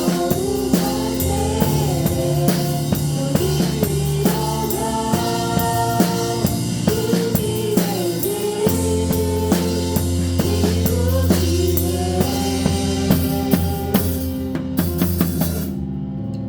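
Live church worship band playing a praise song: a drum kit keeps a steady beat with kick, snare and cymbals under keyboard, bass and singing. Near the end the drums and cymbals stop, leaving held keyboard chords.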